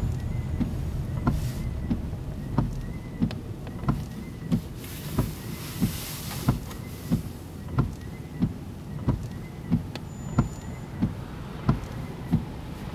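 Car windshield wipers sweeping back and forth in the rain, a thump about every two-thirds of a second as the blades reverse, with a faint whine on each stroke.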